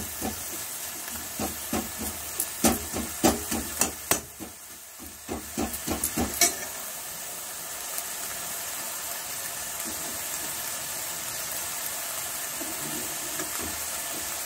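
A steel ladle scrapes and knocks against a non-stick wok as moringa leaves and urad dal badi are stir-fried, in a run of strokes over the first six seconds or so. After that the food sizzles steadily in the pan.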